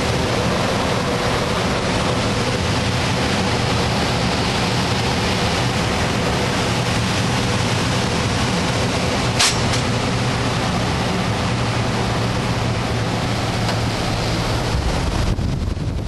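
Steady rush of airflow past a glider's cockpit in engineless soaring flight, with a faint low hum under it and one brief click about nine seconds in. Near the end it turns to low buffeting of wind on the microphone.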